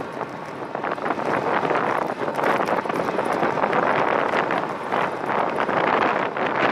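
Wind buffeting the microphone of a camera mounted on a moving road bike, a steady fluttering rush of air.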